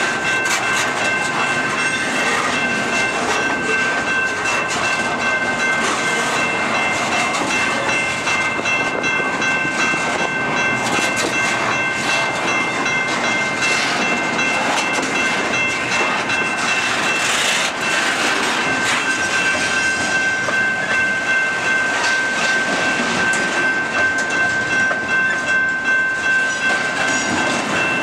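Double-stack intermodal container train rolling past close by: a steady rumble and rattle of the well cars, with wheels clicking over the rail joints. A steady high-pitched ringing tone runs underneath.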